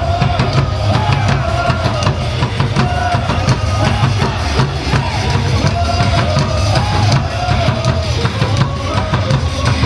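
Loud cheer music with a heavy bass-drum beat and a wavering melody line over it.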